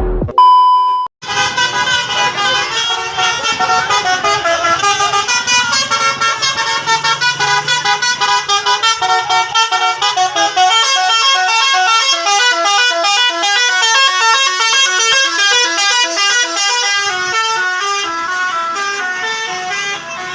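Telolet bus horn playing a fast melody: a set of horns sounding many short notes that step up and down in pitch, after a brief single steady tone about half a second in.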